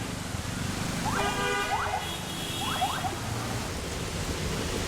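Busy street ambience: a steady wash of traffic noise with vehicle horns sounding twice, one after the other, and a few short rising chirps over them.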